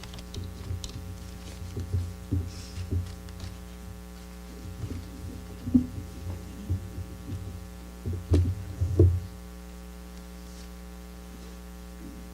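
Steady electrical mains hum, with scattered low thuds; the loudest thuds come about eight and nine seconds in.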